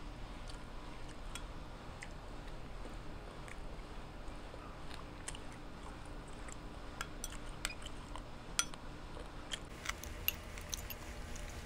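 Eating sounds: light clicks of a utensil against a small ceramic bowl, scattered and coming more often in the second half, with faint chewing.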